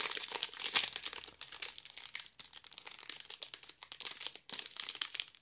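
Foil trading card pack crinkling and crackling as fingers work at its sealed end and struggle to tear it open. The crackle is densest in the first second and a half, then thins out, with a few more crinkles near the end.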